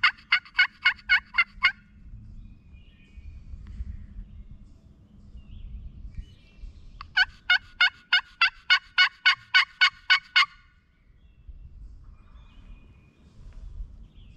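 Two long runs of turkey yelps, evenly spaced at about four to five a second: one trailing off near two seconds in, the other starting about seven seconds in and lasting over three seconds. Low outdoor rumble and faint songbird chirps between the runs.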